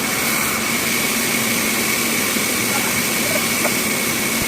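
Bandsaw machine running steadily, a constant mechanical noise with a high whine over a low hum.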